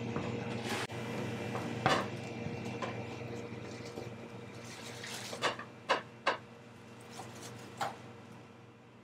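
Bakery work sounds: a steady machine hum under scattered sharp clicks and knocks of kitchen clatter, with a quick run of three knocks around six seconds in. The hum grows quieter toward the end.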